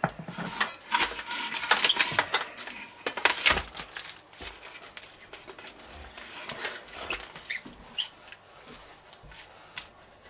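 Metal spatula scraping a frozen sheet of ice cream across a stainless steel pan and pushing it into rolls: a run of uneven scrapes and clicks, louder in the first few seconds and lighter after that.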